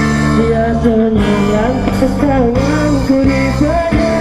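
Amplified live street concert: a singer carrying a wavering melody over guitar and bass.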